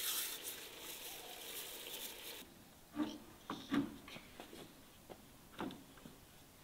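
Dried herbs crumbled between the palms over a cooking pot, a dry rustle that stops abruptly a little over two seconds in. A few short, scattered knocks follow.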